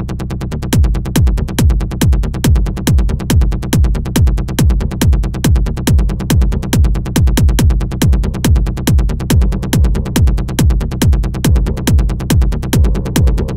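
Electronic dance music: sustained synth tones, joined under a second in by a steady, heavy kick drum beat and regular ticking hi-hats.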